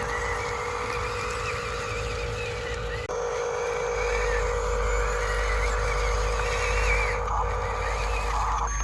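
Radio-controlled model construction vehicles running: a steady electric motor and gear whine with a wavering higher tone over it, changing about three seconds in.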